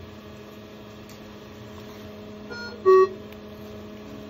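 Steady hum of running medical equipment, broken about three seconds in by a short, loud electronic beep, with a fainter beep half a second before it.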